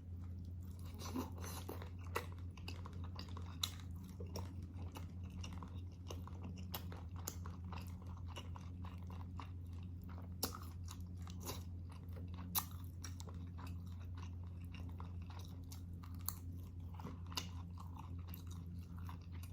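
Close-miked chewing and eating of beef kaldereta: wet mouth clicks and smacks, with a few sharper clicks scattered through, over a steady low hum.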